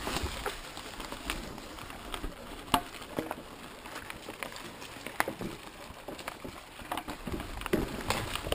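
Mountain bike riding over a dirt forest trail: irregular clicks, knocks and rattles from the bike and the ground over a low rumble, with one sharper knock nearly three seconds in.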